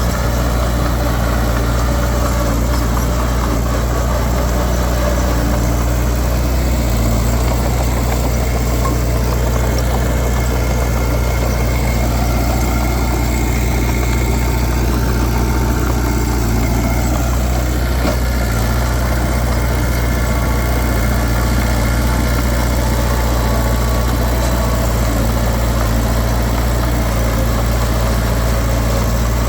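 Heavy earthmoving machine's diesel engine running steadily, a constant low drone with no breaks or sharp impacts.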